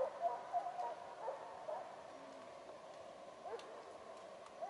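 Russian hounds baying in the distance while running a hare's trail: a string of short yelping calls, irregularly spaced, several close together near the start and a couple more near the end.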